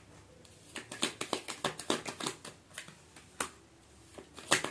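A deck of tarot cards being shuffled by hand: a quick run of card snaps and clicks for about two seconds, a single snap, then another short flurry near the end.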